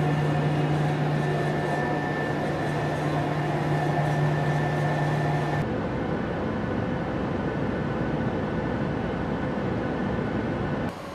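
Steady in-flight cabin noise of a Boeing P-8A Poseidon: an even rush of jet engine and airflow noise with a strong steady low hum. About six seconds in it changes to a rushing noise with a single higher steady tone, heard at a cabin window beside the wing and its CFM56 engine.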